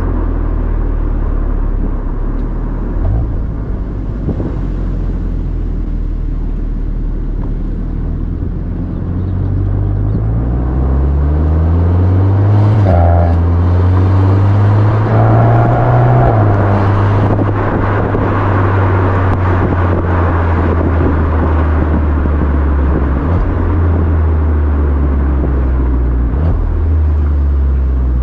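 Akrapovic exhaust of a VW Golf 8 R's 2.0-litre turbocharged four-cylinder, heard at the tailpipe while driving in Normal mode. The exhaust note climbs in pitch through the gears from about a third of the way in, then settles to a steady cruising drone, over road and wind noise.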